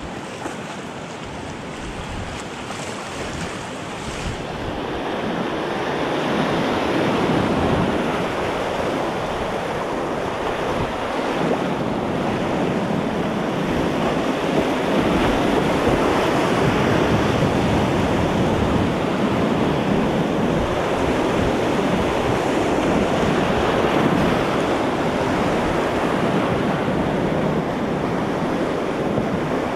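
Whitewater rapid rushing and splashing around a kayak, growing louder over the first several seconds as the boat moves from the flatter water into the rapid, then a steady loud rush of broken water.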